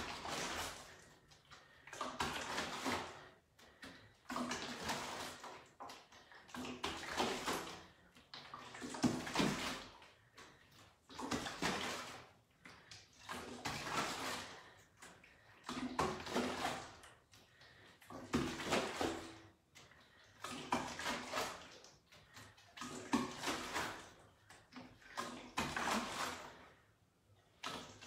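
A swishing sound once per bicep-curl repetition, about one every two seconds, from a makeshift hand weight in a plastic bag being lifted and lowered.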